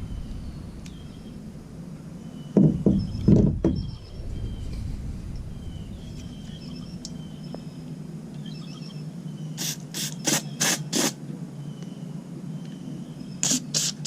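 Short hissing blasts of spray blown through a lawn mower carburetor's idle jet to clear it. Five come in quick succession partway through and a few more near the end. A couple of clunks from handling the parts come a few seconds in, over a steady low hum.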